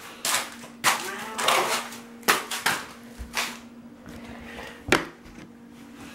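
A series of short knocks and rustles, about seven spread over six seconds, over a steady low hum.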